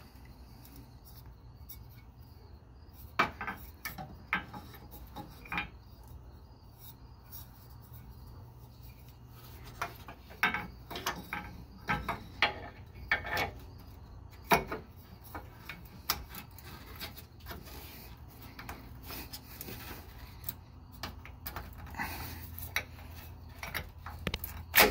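Handling noises as a new metal inline fuel filter is worked into its mounting clamp by hand: scattered clicks, taps and rubbing of metal and plastic. They come in a cluster a few seconds in and a busier run from about ten to fifteen seconds in, with a sharp click at the very end.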